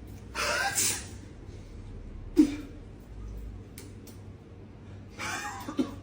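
A person's loud, breathy non-speech vocal sounds: a long hissing burst about half a second in, a sharp short blast a couple of seconds later (the loudest), and another breathy burst ending in a sharp sound near the end.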